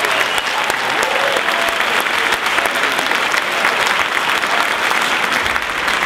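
Audience applauding steadily in a theatre hall, a dense patter of many hands clapping.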